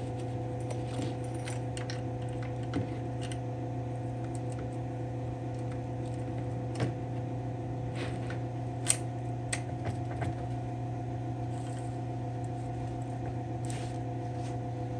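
Chainsaw chain links clinking and rattling as the chain is worked around the bar, with scattered sharp clicks, the loudest about nine seconds in. A steady hum runs underneath.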